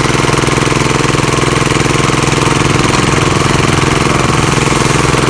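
Small engine running loud and close at a steady speed, with a rapid, even firing beat.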